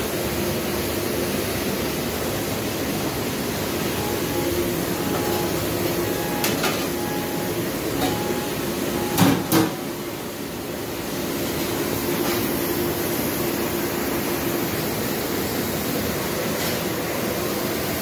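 Steady noise of a commercial dish room with a low machine hum, broken by a few sharp clatters as a plastic dish rack is handled; the loudest two come close together about nine seconds in.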